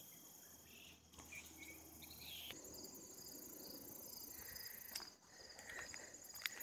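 Faint chorus of insects trilling in a fast, steady pulse, with a few light clicks near the end.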